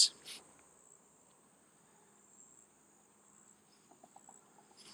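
A faint, steady, high-pitched chirring of insects, with a few soft little ticks near the end as a shoelace is worked through a shoe's eyelet.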